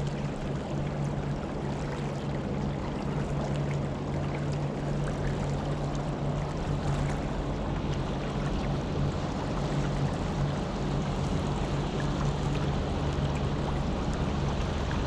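Small boat's motor running at a steady pitch, with water rushing along the hull.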